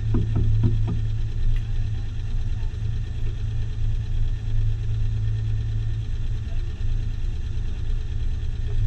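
Car engine idling or running slowly with a steady low drone.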